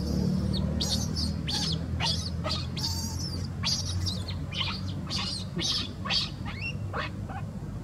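Baby macaque squealing: a rapid, irregular string of short, high-pitched cries, many sweeping sharply up or down, over a low steady hum.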